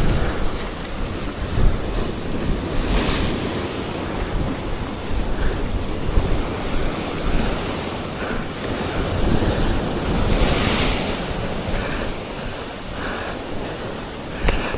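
Sea waves washing against shore rocks, with wind rumbling on the microphone; the surf swells up about three seconds in and again around ten seconds.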